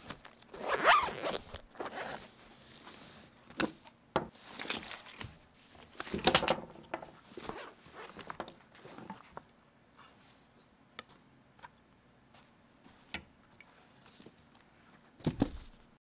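Zipper on a nylon cue case pulled open, loudest about a second in, with another loud rasp around six seconds. Between and after, small clicks, knocks and metallic clinks as pool gear such as metal tip shapers and chalk is taken out and set down on the table, thinning out to a few ticks in the second half.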